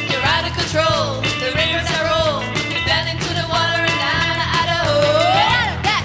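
Live garage pop band playing: drums, bass and choppy guitar, with a melody line bending up and down over them.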